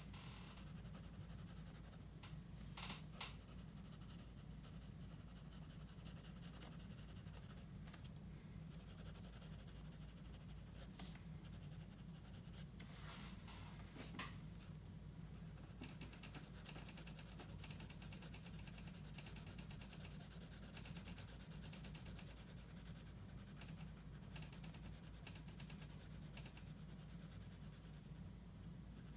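Faint scratching of a drawing tool on paper: short strokes at first, then quick back-and-forth shading strokes from about halfway through, over a low steady hum.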